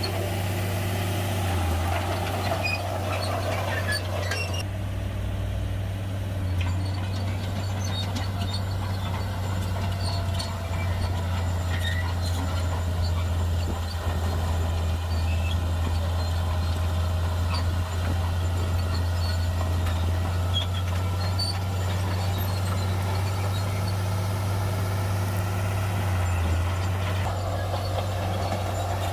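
Shantui bulldozer's diesel engine running with a steady low drone throughout. A rougher, higher noise is louder for the first few seconds and comes back near the end.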